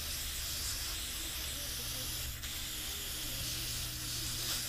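Aerosol cleaner sprayed from a can onto a lawnmower carburetor, a steady hiss as the top of the carb is washed free of dirt.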